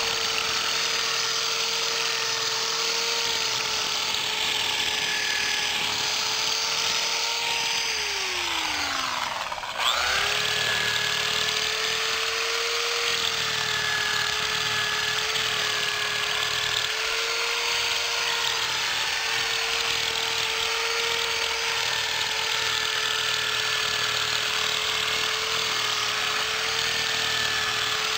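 Corded electric drill used as an improvised grass cutter, its motor running with a steady whine over a hiss of whipping grass. About eight seconds in the motor winds down in falling pitch, then speeds back up just before ten seconds in and runs steadily again.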